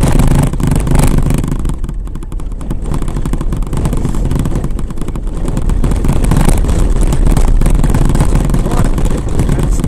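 Vehicle driving fast over a corrugated sandy dirt track: loud, steady engine and road noise with a constant rapid rattling and jolting from the corrugations.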